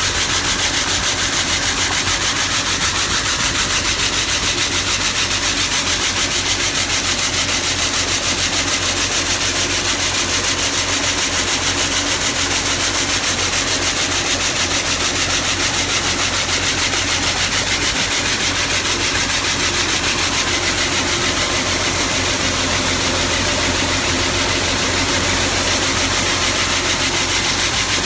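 Shelled corn pouring steadily from an auger spout into an empty metal grain trailer, a continuous loud hiss of kernels striking the trailer's floor and walls. An engine runs steadily underneath, driving the loading.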